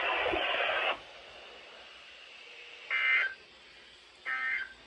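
Weather-radio hiss that cuts off about a second in, then two short bursts of EAS data tones about a second and a half apart: the end-of-message (EOM) signal that closes a NOAA Weather Radio required weekly test.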